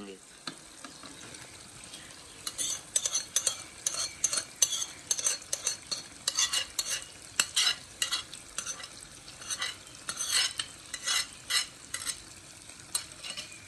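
Marinated meat going into a karahi of masala frying in ghee: a steady low sizzle, with a run of spoon scrapes and clinks against the metal pan starting about two and a half seconds in.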